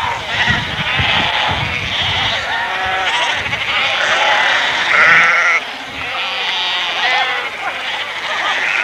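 A large flock of Icelandic sheep crowded together in a pen, bleating without pause, many calls overlapping one another.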